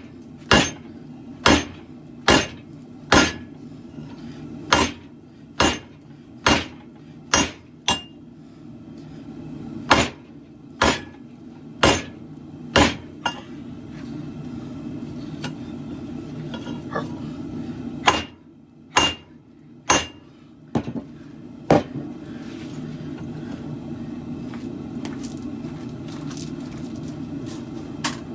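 Hand hammer striking hot steel on an anvil while forging a khopesh blade: a run of sharp blows about one a second, each with a short metallic ring, a pause, then four more blows. A steady low rumble runs underneath and grows louder in the second half.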